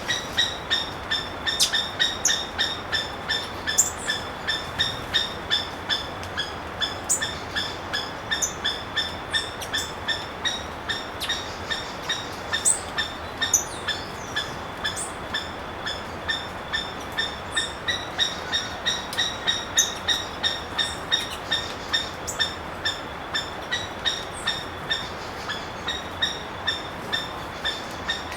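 Red-legged seriema calling: a long unbroken series of short, loud, yelping notes at about three a second, with other small birds chirping faintly behind.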